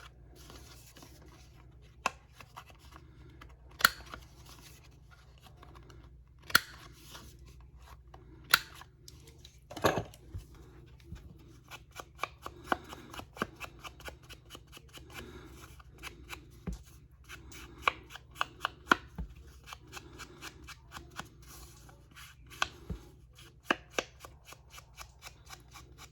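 Paper card having its corners rounded: sharp cutting clicks, a few loud single ones spaced a couple of seconds apart in the first ten seconds, then many quicker, lighter clicks and snips.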